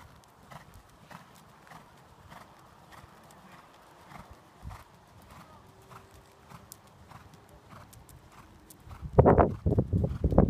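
Horse cantering on a soft arena surface: faint, regular hoofbeats about every 0.6 s, one per canter stride, then a much louder stretch of thuds about nine seconds in.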